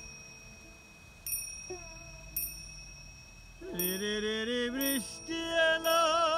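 Folk song performance: small hand cymbals ring on with a few light strikes while a plucked lute plays softly. About four seconds in, a voice comes in with a wordless sung melody that slides upward and then wavers with vibrato, getting louder toward the end.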